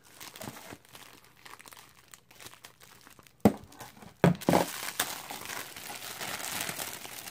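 Clear plastic poly bag crinkling as it is handled and pulled open, with light scattered rustles at first, then two sharp loud snaps about three and a half and four and a half seconds in, followed by steady dense crinkling.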